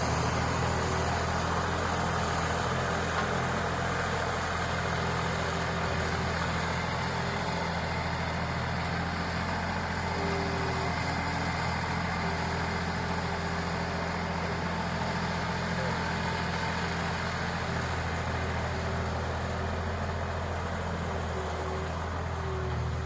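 An engine idling steadily, with an even low hum that does not change.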